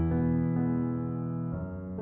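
Slow piano music: held notes and chords ringing out, changing to a new chord about a second and a half in.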